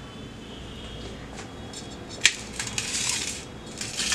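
Spoons and spice containers being handled on a steel plate: a sharp click about two seconds in, then a short scraping rustle and a few small clicks near the end.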